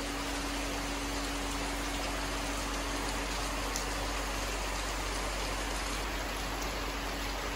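Heavy rain falling steadily, an even hiss of rain on wet ground and foliage.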